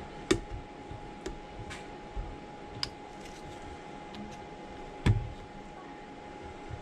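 Small sharp clicks and ticks of a thin opening tool working around the edge of an iPhone 13 Pro Max, prying the glued screen away from the frame, with two louder clicks, one just after the start and one about five seconds in. A faint steady tone runs underneath.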